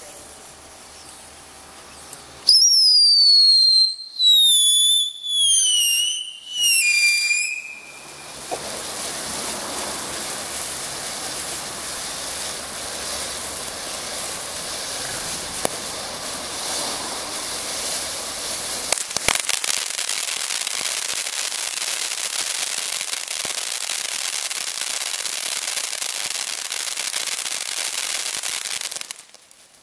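Ground fountain firework going off. About two seconds in come four loud whistles, each falling in pitch. Then a steady hiss of spraying sparks with a few sharp cracks, which stops suddenly near the end.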